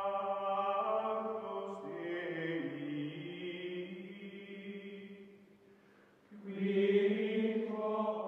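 Outro jingle music of long held, choir-like chords that shift pitch about two seconds in and fade away. A louder held chord comes back near the end.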